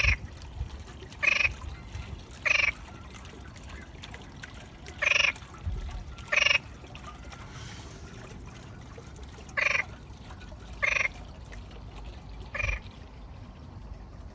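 A frog croaking: eight short calls, mostly in pairs about a second apart with longer pauses between the pairs.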